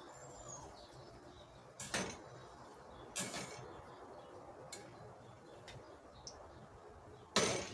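A kitchen utensil clinks against a frying pan three times while bolinhos de chuva are being turned in hot oil, over a faint steady sizzle of frying.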